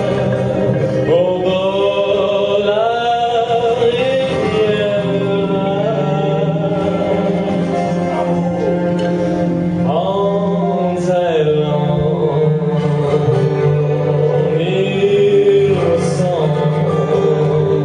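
Violin playing a slow melody that slides and bends between notes, over low held notes from a cello.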